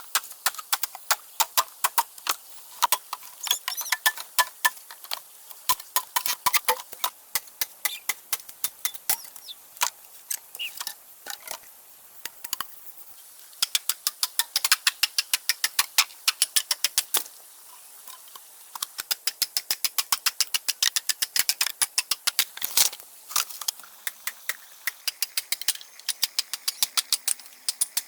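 Small hoe striking hard, dry earth while digging a post hole: quick runs of sharp strikes, several a second, broken by a couple of short pauses.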